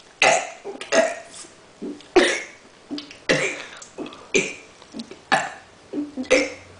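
A girl burping the alphabet, forcing out one short burp per letter, six or seven burps about a second apart, each starting suddenly and trailing off.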